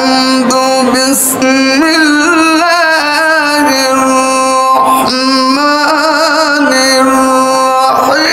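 A man reciting the Quran in the melodic, drawn-out style of a qari, with long held notes and wavering ornamental turns. The recitation is broken by two short pauses for breath.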